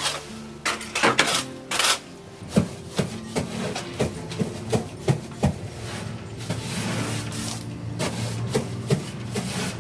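Repeated scraping and knocking, about one or two strokes a second, as bedding and litter are cleared out of a small animal barn, over background music.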